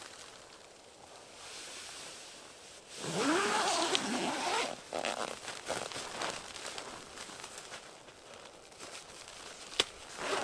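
Tent door zipper being unzipped in one long pull about three seconds in, followed by softer rustling of the tent's nylon fabric as the door is pushed open. A single sharp click comes near the end.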